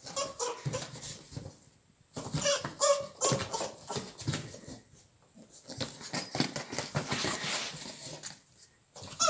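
Two bulldog puppies, an Old English Bulldog and a French Bulldog, at play: brief high puppy vocal sounds mixed with scuffling and knocking as the larger puppy paws and tugs at a sneaker. The sounds come in irregular spurts, with short pauses.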